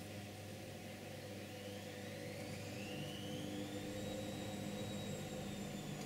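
Faint steady hum with a high whine that rises in pitch for about two seconds, then holds and drifts slightly down near the end.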